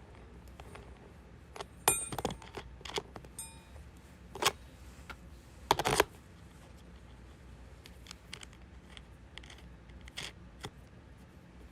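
Scattered light clicks and clinks of small hard objects being handled, a couple with a brief metallic ring; the loudest come about two seconds and six seconds in.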